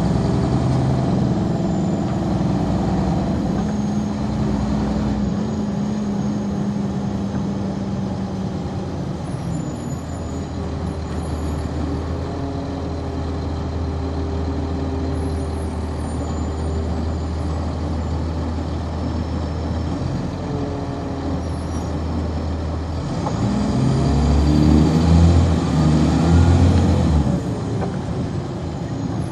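Cummins ISC diesel engine of a 1999 NovaBus RTS transit bus heard from on board, running with a steady low drone for most of the stretch. Near the end it grows louder, with a rising note for a few seconds, as it pulls harder.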